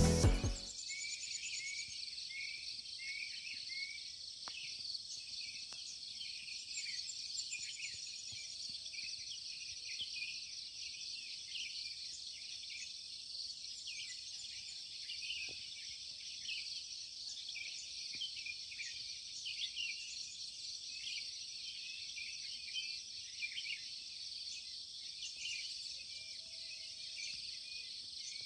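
Steady, high-pitched shrilling of an insect chorus in the early morning, with many short high chirps layered over it.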